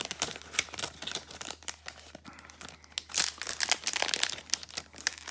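Packaging crinkling and rustling as it is handled, with irregular small clicks and taps.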